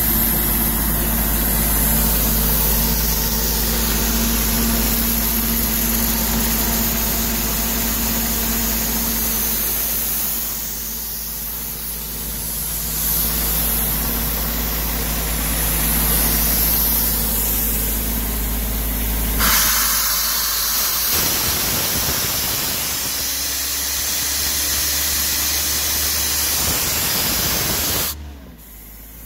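Kaeser M22 portable diesel screw compressor running: a steady engine tone under a loud hiss. About two-thirds of the way in the sound changes and the engine tones fade, and near the end the level drops sharply.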